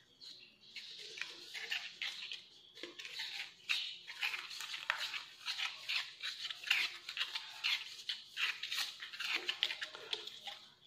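Teflon (PTFE) thread tape being pulled off its roll and wrapped tightly around the threads of a PVC male adapter: a dense, irregular run of short squeaks and rustles as the tape stretches and the fitting turns.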